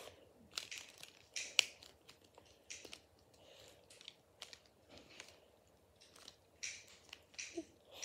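A 1x3x3 plastic puzzle cube being turned by hand: irregular short clicks and scrapes as its layers are twisted.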